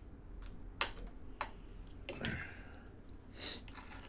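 Cutlery clicking against a plate at a quiet table: two sharp clicks about a second apart, a short scrape, then a soft breath near the end.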